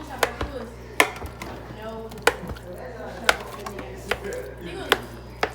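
A utensil chopping and mashing baked, peeled sweet potatoes in a bowl for pie filling, knocking sharply against the bowl about once a second at an uneven pace.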